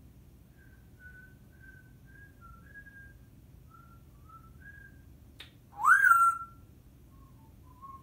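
Timneh African grey parrot whistling: a string of short, soft whistled notes, then a sharp click and one loud whistle about six seconds in that rises in pitch and levels off, followed by a few soft notes again near the end.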